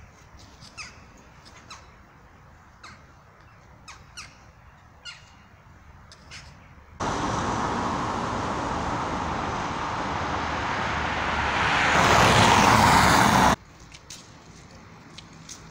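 Birds calling in short, scattered high calls over quiet outdoor ambience. About seven seconds in, a steady rushing noise of traffic on a wet cobbled street takes over, swells to its loudest, then cuts off abruptly. A few faint bird calls follow.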